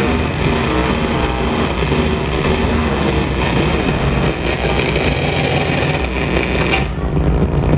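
Loud live experimental music: a dense, droning wall of sound with sustained low notes under a layer of hiss. The hiss cuts off about seven seconds in while the low drone carries on.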